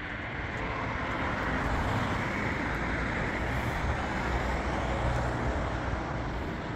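A motor vehicle passing on the road: a steady rumble and tyre noise that swells towards the middle and eases a little near the end.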